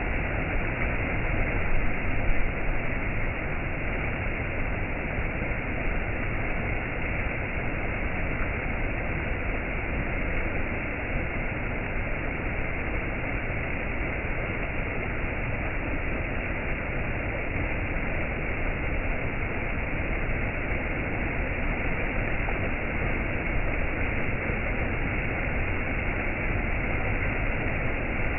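Waterfall: steady rushing water.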